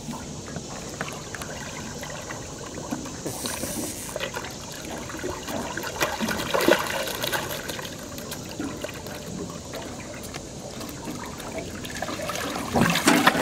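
A hooked blue catfish splashing and thrashing at the surface as it is reeled in alongside the boat, water splashing and dribbling around it and the planer board. The splashing grows louder near the end as the fish is brought up to the net.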